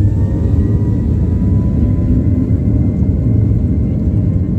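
Airliner turbofan jet engines at takeoff thrust during the takeoff roll, heard from inside the cabin: a deep steady rumble with a high engine whine held at a steady pitch over it.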